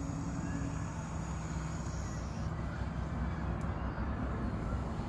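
Steady low hum of an idling vehicle engine, with a faint high hiss that stops about halfway through.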